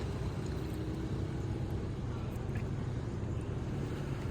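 Steady low mechanical hum and rumble, with no distinct events.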